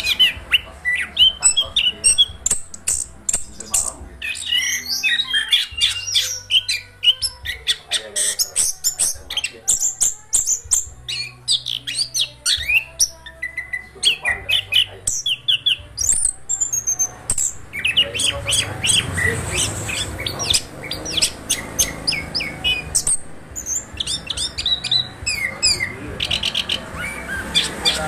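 Chestnut-capped thrush (anis kembang) singing a fast, continuous string of varied chirps, trills and sharp ticks, with barely a break.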